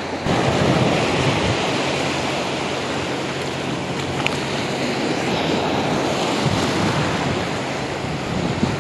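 Surf breaking and washing up a sandy beach: a steady, loud rush of waves.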